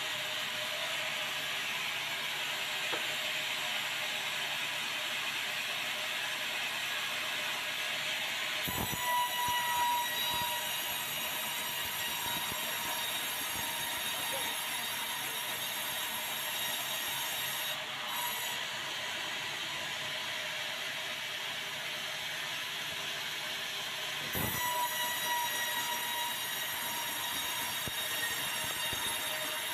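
Sawmill band saw running as a white meranti log on its carriage is fed through the blade, a steady machine noise. About nine seconds in and again about 24 seconds in there is a knock, each followed by a high ringing whine.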